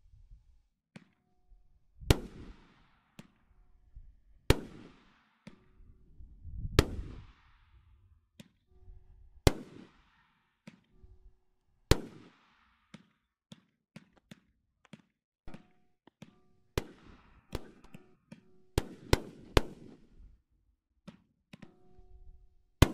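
Dr. Jekyll consumer firework cake firing: loud sharp bangs of bursting shots, each trailing off. The bangs come about every two to three seconds at first, then as a quicker, uneven run of bangs and pops later on.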